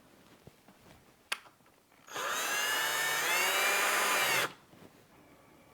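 Ryobi power drill driving a screw into the door edge to fasten the deadbolt latch: a small click, then the drill motor runs steadily for about two and a half seconds, its whine rising a little partway through before it stops.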